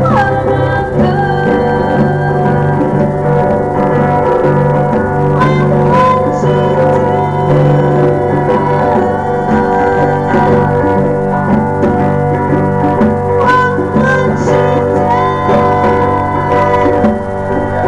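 Live band music: an electric guitar and hand-played congas, with a singing voice.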